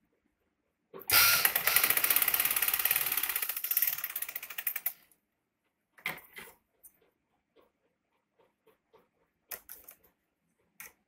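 Sewing machine running for about four seconds, a rapid even clatter of stitches as it sews a folded fabric strip onto a sleeve. Afterwards come a few short clicks and rustles of cloth being handled, with scissors snipping near the end.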